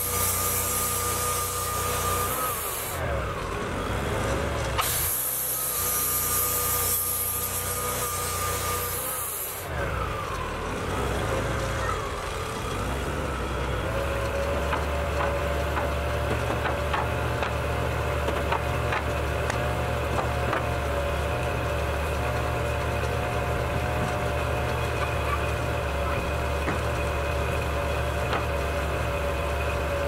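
Wood-Mizer portable band sawmill running. For about the first ten seconds there is a high hiss with a steady whine in two stretches, broken by a short gap. The engine then settles to a steady idle, with a few light knocks.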